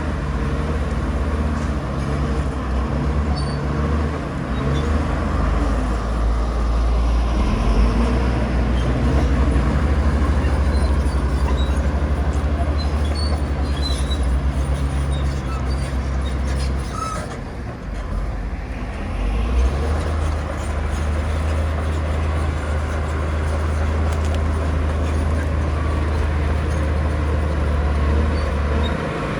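Heavy diesel earthmoving machine's engine running under load with a deep, steady drone. The drone eases off briefly about two-thirds of the way through, then picks up again.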